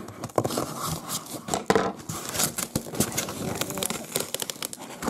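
A heavily taped cardboard parcel being worked open by hand: irregular rustling, crackling and tearing of packing tape and cardboard, with many small clicks.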